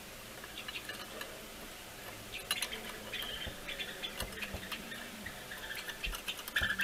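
Light clicks, taps and scraping as a metal pipe is handled in and against a clear plastic plating container. The taps come in quick irregular runs from about two and a half seconds in.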